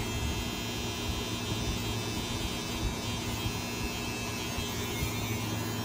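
Cordless electric hair trimmer buzzing steadily while it cuts through freeform dreadlocks at the root.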